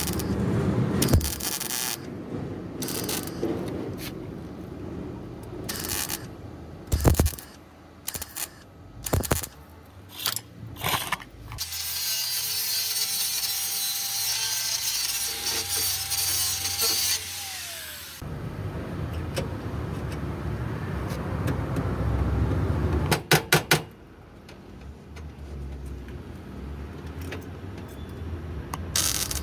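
Truck bodywork on a rusty steel wheel-arch panel: an angle grinder cutting sheet metal at the start, then scattered metal knocks and clanks as pieces are handled. A steady hiss with a held tone runs for several seconds in the middle, and a quick cluster of sharp clicks comes near the end.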